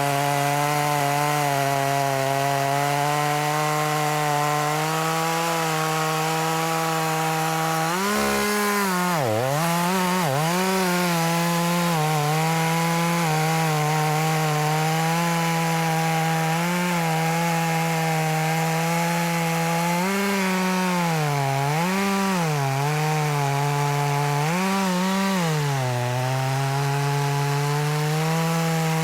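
Echo CS355T two-stroke top-handle chainsaw running at full throttle through a log. Its engine note dips and recovers several times as the chain bogs under load in the cut, most deeply about eight to ten seconds in and again near twenty to twenty-six seconds.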